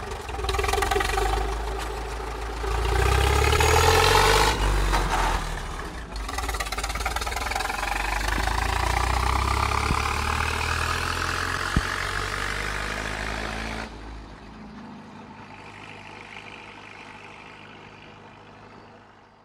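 Farmall M tractor's four-cylinder engine pulling away under throttle and working up through the gears: its pitch climbs, breaks briefly for a shift about six seconds in, then climbs again. Near fourteen seconds the sound falls away suddenly and then fades into the distance.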